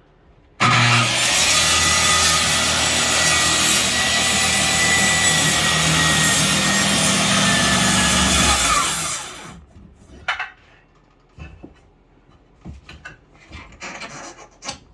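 Circular saw starting abruptly and cutting through a wooden wall board for about eight seconds, its blade depth set shallow so it cuts only the board, then spinning down with a falling whine. A few light knocks and scrapes follow.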